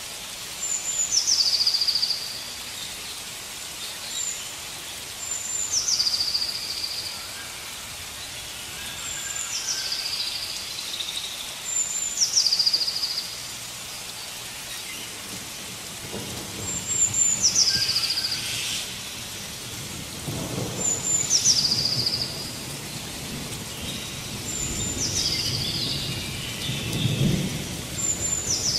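A forest bird repeating a high whistled call that falls in pitch, every few seconds, over a steady hiss of rain. Low rumbles of thunder come in during the second half.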